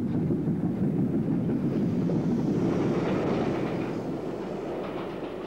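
Steam-hauled train running past on the climb, a dense rumble of engine and wheels that gradually fades as it draws away.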